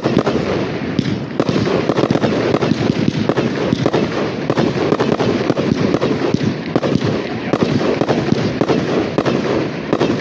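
Fireworks display at full intensity: a dense, continuous barrage of bangs and crackling with no let-up.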